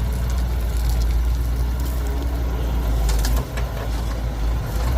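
Diesel engines of earthmoving machinery (excavator and dump trucks) running steadily with a deep rumble, with a few short knocks about three seconds in and again near the end.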